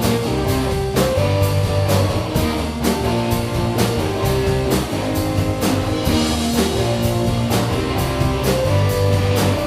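Rock band playing an instrumental passage: electric guitar lines over bass and a steady drum-kit beat, with no singing.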